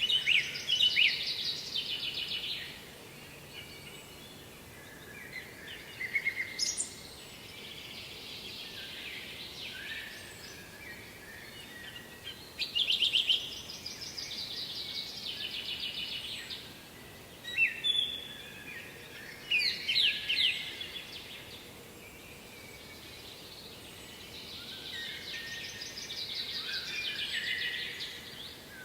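A songbird singing: repeated high-pitched phrases of rapid trilled notes, each one to three seconds long with short pauses between, over a faint steady hiss.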